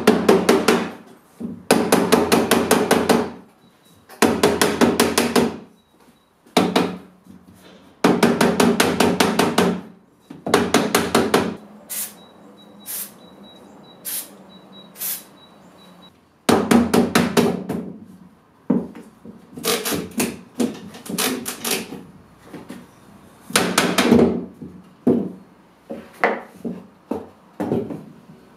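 A rubber mallet tapping in quick runs of blows on the top rail of an old wooden spindle frame, knocking the rail loose from the turned spindles' dowel ends. Near the middle the tapping stops for a few short aerosol sprays at the joints, then resumes.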